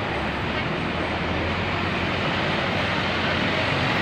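Steady road traffic noise: the rush of engines and tyres from vehicles passing on the road, with no horn.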